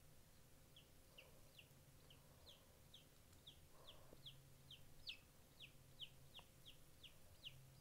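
Baby showgirl silkie chick peeping: a steady run of short, high, falling peeps, about two a second, faint.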